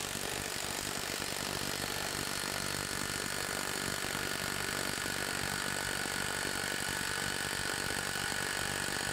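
Alloyman WD-12 cordless impact wrench hammering in reverse against a torque test rig under full load, a steady rapid rattle of impacts through a 10-second max-torque run.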